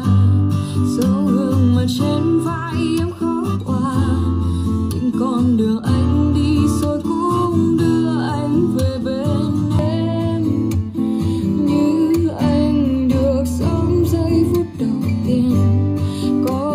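A song with strummed acoustic guitar, bass and a singing voice, played back through a Bluetooth speaker for a sound test.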